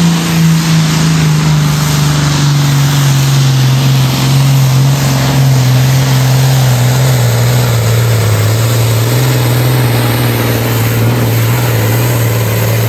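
Turbocharged diesel engine of a Pro Stock pulling tractor at full throttle, hauling a weight-transfer sled. Its loud, steady drone slowly falls in pitch as the engine is pulled down under the growing load.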